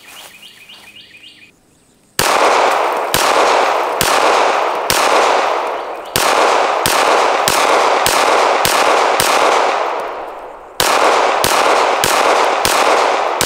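SIG P320 X5 Legion 9mm pistol fired in a steady string of about fifteen shots, roughly two a second, each with a short ringing echo. The shots start about two seconds in, with a brief pause near the end.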